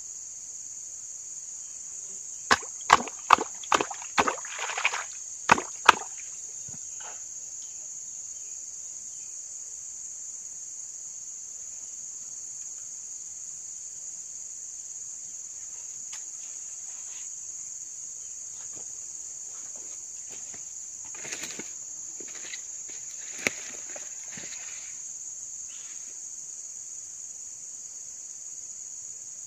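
Steady high-pitched insect chorus of crickets. A few seconds in comes a quick run of about eight sharp clicks and knocks, the loudest sounds, and a few weaker knocks follow about twenty seconds in.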